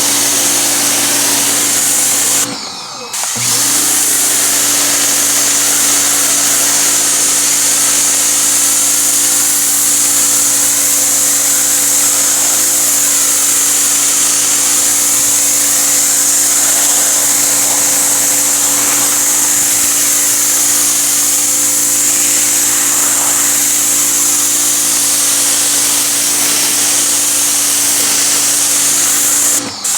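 Greenworks 1700 PSI electric pressure washer running: a steady motor and pump hum under the loud hiss of the water jet. It stops for about a second some three seconds in and starts again, and dips twice briefly near the end.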